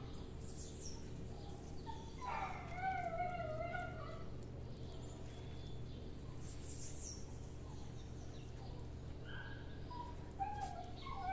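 Two drawn-out animal calls, each about two seconds long with a wavering pitch, one a couple of seconds in and one near the end. Brief high bird chirps and a steady low hum run underneath.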